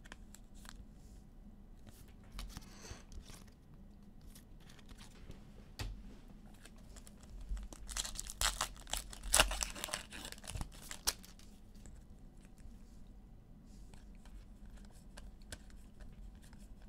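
A trading-card pack wrapper being ripped open and crinkled, loudest about eight to ten seconds in, with scattered light clicks and taps of card handling around it.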